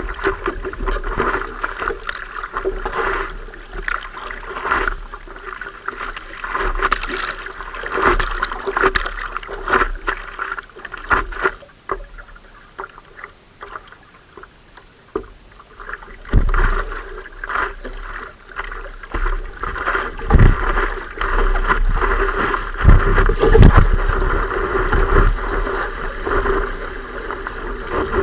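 Sea water sloshing and splashing against a surfboard as a surfer paddles and rides a small wave. The water sounds come as irregular splashes and grow into louder, deeper rushes about halfway through.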